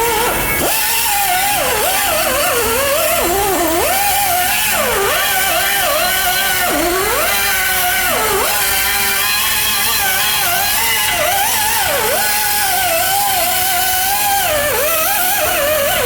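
Background music: a single melody line that slides and bends in pitch, over a steady hiss.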